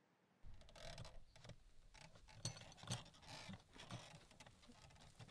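Footsteps and a pram being pushed over rough grass, an irregular run of knocks and rustles about two a second, starting about half a second in.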